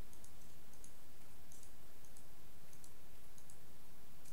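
Computer mouse button clicking at irregular intervals, often in quick pairs, as pieces are selected with the left button. A low steady hum runs underneath.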